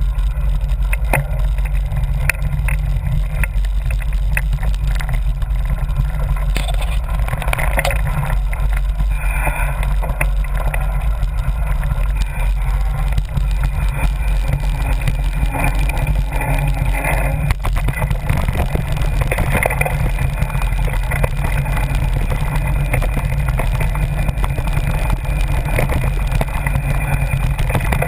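Mountain bike ridden over a dry dirt trail, recorded through a bike-mounted camera microphone. Heavy, steady wind rumble on the microphone runs throughout, with scattered clicks and rattles as the bike goes over rough ground.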